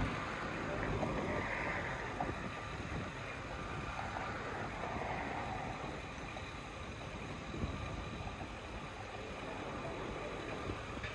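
Steady background noise of a construction site: distant engines and machinery running, with a faint steady hum and a few small knocks.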